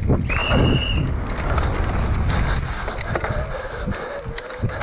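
Electric mountain bike being ridden along a trail: wind on the helmet camera's microphone and rumbling tyre and frame rattle, with sharp knocks from the bike. About a third of a second in comes a brief high squeal, and in the second half a wavering whine rises and falls, typical of the e-bike's assist motor under pedalling.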